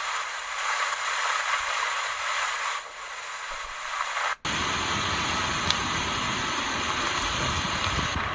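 Steady rushing of floodwater pouring through a dam spillway. About four and a half seconds in, the sound drops out for a moment and comes back with a deeper rumble added underneath.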